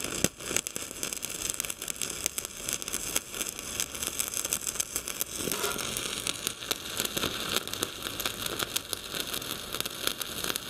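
Stick (shielded metal arc) welding with a thick 5.0 mm electrode: the arc gives a steady, dense crackle. The welder is a small Jasic NovoArc 210M inverter set in its AI mode for 5.0 mm rod, so the machine picks the current itself.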